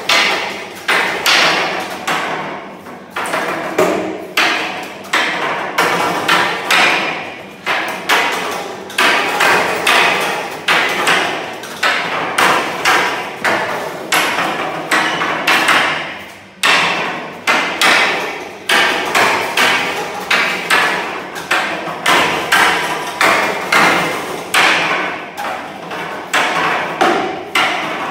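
A long wooden staff repeatedly striking the wooden pole arms of a Wing Chun dragon pole dummy: sharp wooden knocks, roughly two a second, each ringing on briefly, with a short lull about sixteen seconds in.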